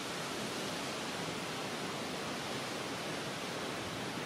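Steady breeze blowing across open water, heard as an even rushing hiss with no separate sounds standing out.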